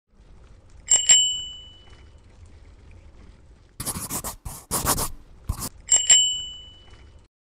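A bicycle bell rings twice in quick succession, then a scraping, rushing swoosh lasts about two seconds, then the bell rings twice again and fades out.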